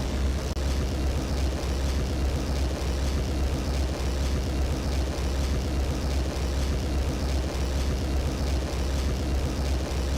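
Steady low droning rumble, engine-like, holding an even level throughout.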